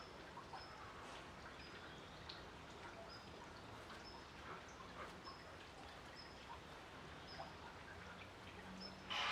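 Faint outdoor ambience with a bird's short high chirp repeating about once a second and a few light ticks, then a brief loud rustle near the end.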